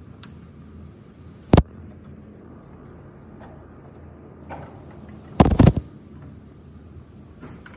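Sharp metallic clanks of a long socket wrench and extension working the bolts off a motorcycle engine's stator cover: one about one and a half seconds in, then a quick cluster of several a little past five seconds.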